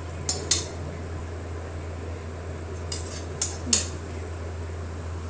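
Spatula scraping and clinking against a metal kadai while stirring a frying onion-tomato masala, with a couple of sharp clinks about half a second in and a few more around three to four seconds in.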